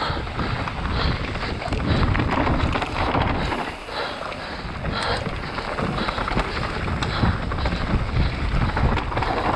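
Mountain bike descending a rough trail at speed: wind buffeting the microphone over the rumble of tyres on dirt, with short knocks and rattles from the bike.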